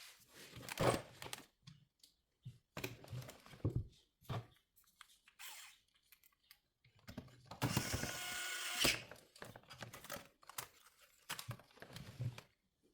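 Hands working on the plastic parts of a car head unit: scattered clicks and small knocks with rustling, and a longer, louder scraping rustle about eight seconds in.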